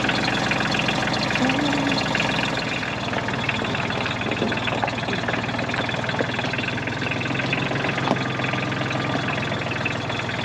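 Tractor engine idling steadily, with a few short knocks partway through.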